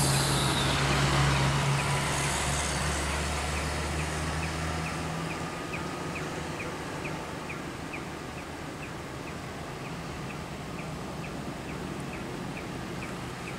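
Low engine hum of road vehicles, strongest in the first five seconds and then fading, over an even wash of road noise. A faint, regular ticking about twice a second runs underneath.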